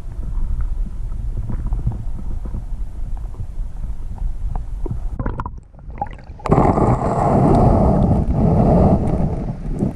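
Stream water heard underwater: a low, muffled rumble with faint clicks. About six and a half seconds in it changes to a louder, fuller rushing of shallow current over gravel.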